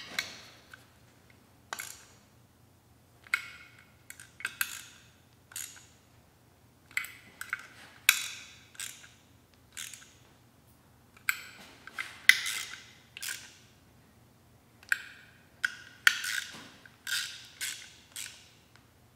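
Hand ratchet wrench clicking and metal clinking in short bursts with pauses between, as the bolts of a billet aluminum motor end bell are snugged by hand after being run in with an impact gun.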